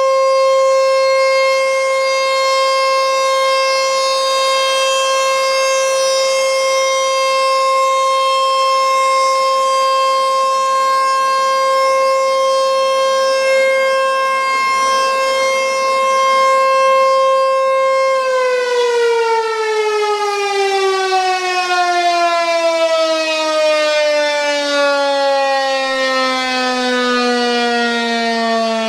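ASC T-128 outdoor warning siren sounding one steady tone, loud. About 18 seconds in its pitch starts to fall steadily and keeps sliding down as the siren winds down at the end of its monthly test run.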